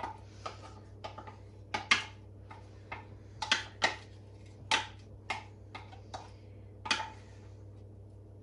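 Wooden spoon knocking and scraping against a crème fraîche tub and the rim of a frying pan as the cream is spooned into the pan: a string of sharp, irregular taps, a dozen or more, that stop about a second and a half before the end.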